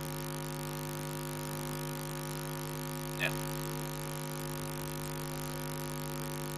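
Steady electrical mains hum, several steady tones layered together, with one brief short sound a little over three seconds in.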